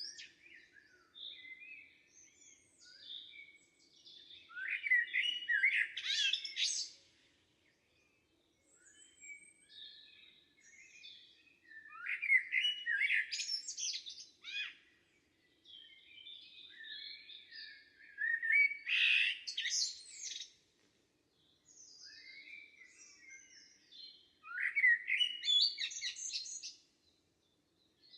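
Forest songbirds singing: one bird repeats a loud song phrase of about two seconds roughly every six seconds, with quieter chirps and calls from other birds in between. A faint steady low hum runs underneath.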